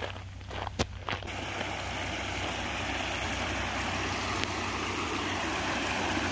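Footsteps on gravel for about the first second, then the steady rush of a small mountain stream splashing down over rocks, growing slowly louder as it is approached.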